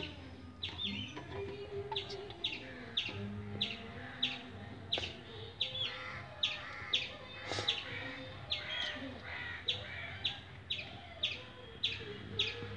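A bird chirping over and over, short high chirps about twice a second, the loudest sound throughout, over faint wavering lower tones.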